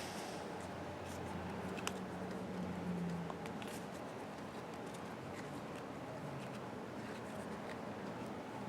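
Trading cards being handled and flipped through: faint rustling with a few light clicks, over a low steady room hum.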